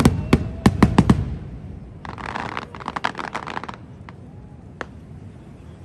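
Aerial fireworks: a rapid volley of loud bangs in the first second or so, then about two seconds in a crackling fizz of many tiny pops for about a second and a half, followed by two single sharp pops.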